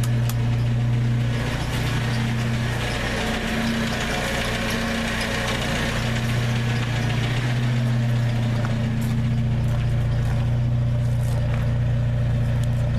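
Vehicle engine idling steadily with a constant low hum, a few faint clicks over it.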